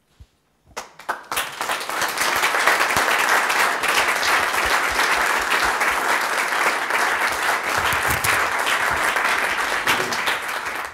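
A roomful of people applauding. A few separate claps about a second in quickly build into steady, dense clapping.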